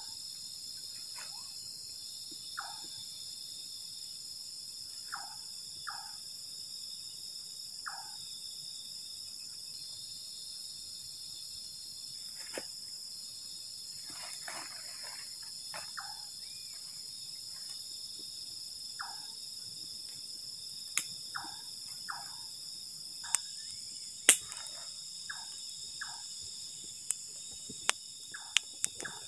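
Night chorus of crickets and other insects, a steady high-pitched trill, with short chirping calls every few seconds. In the last few seconds a campfire of dry twigs crackles with sharp pops.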